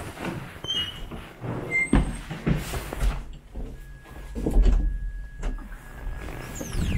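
Stairwell and entrance doors being opened and pushed through, with footsteps, short squeaks and knocks, and a heavy thud about four and a half seconds in; a thin steady tone comes in near the middle.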